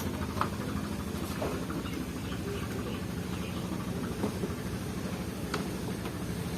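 A steady low engine hum with a few faint clicks over it.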